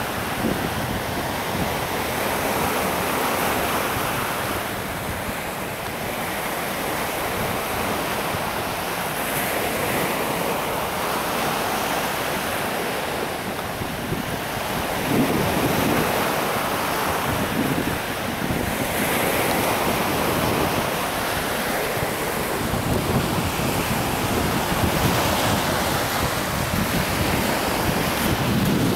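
Sea surf breaking and washing onto the shore, a steady rush that swells and eases every few seconds, with wind buffeting the microphone.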